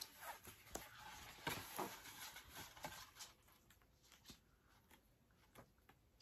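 Paper handling: the stiff cover and pages of an album photo book being opened and flipped, with soft rustles and light taps, then a run of faint quick ticks as the pages are fanned through.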